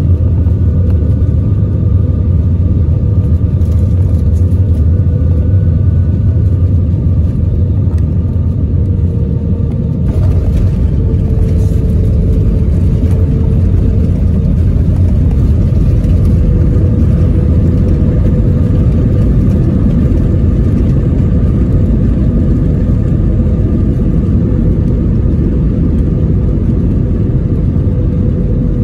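Cabin noise of a jet airliner landing and rolling out on the runway with its spoilers up: a loud, steady low rumble of engines and wheels with a steady hum over it. The sound shifts about ten seconds in.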